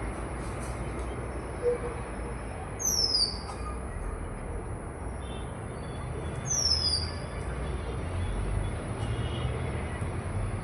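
A small bird calling twice, each call a high, clear note that slides downward and lasts about half a second. Underneath are a steady high hiss and a low rumble that swells near the end.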